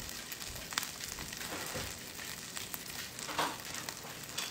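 Butter sizzling around a folded low-carb tortilla quesadilla frying in a nonstick pan: a steady hiss with scattered small pops and crackles. The butter is foaming and browned, heated a little too much.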